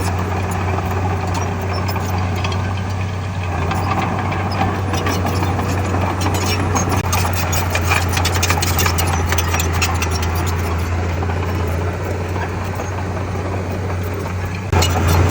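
Heavy diesel engine of earthmoving machinery running steadily with a deep drone. Clanks and rattles come through the middle, and it gets louder near the end.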